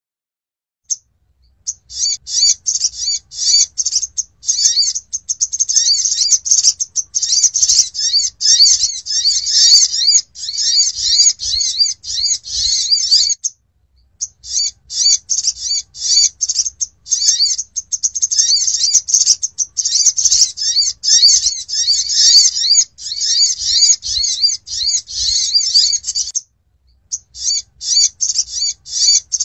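Sunbird (sogok ontong) song used as a trapping lure call: rapid, high twittering chirps in long unbroken bouts. The song breaks off briefly about 13 seconds in and again near 26 seconds.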